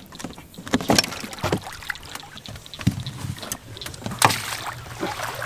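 Scattered knocks and water sounds in a small fishing boat as a hooked bass is brought to the net and landed, the sharpest knocks about a second in and just after four seconds.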